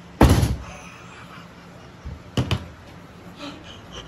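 A loud thump about a quarter second in, then two sharp knocks close together about two seconds later, with faint laughter near the end.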